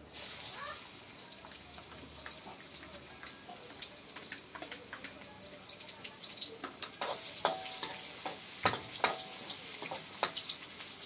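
Chopped shallots, garlic, ginger and onion dropping into hot oil in a wok and sizzling, the hiss starting suddenly at the beginning. From about seven seconds in, a ladle clinks and scrapes against the metal wok as they are stirred.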